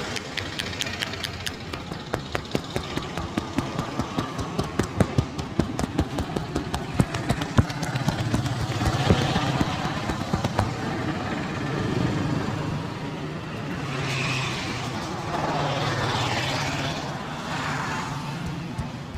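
Rapid, irregular hand slaps and taps of a street barber's head massage, over the noise of street traffic. In the second half a motor vehicle engine swells past twice.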